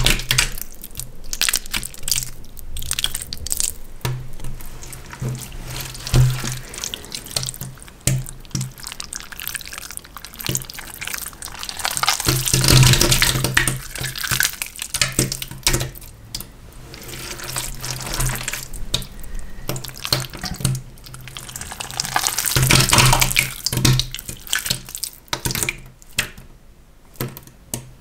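Wet squelching and squishing of gelatin food jelly crushed and kneaded between the hands, full of small sticky clicks and smacks. Two longer stretches of dense squelching come about halfway through and again later, and it dies down near the end as the crumbled jelly is dropped.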